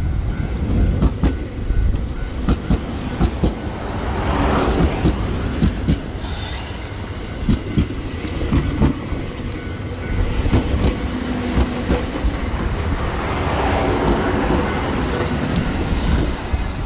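JR 721 series electric multiple unit running on the track: repeated clickety-clack of its wheels over rail joints over a steady rumble, swelling louder twice as the cars go by.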